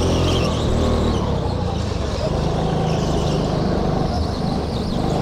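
Rental go-kart engine running under the driver, the note easing off about a second in through a tight bend and picking up again as it accelerates out.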